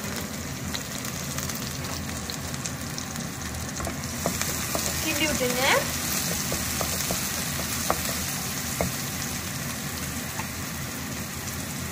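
Chopped onions, green chillies and cumin seeds sizzling in hot oil in a metal pan while a spatula stirs them, with a few light clicks of the spatula on the pan. The sizzle grows louder and brighter about four seconds in.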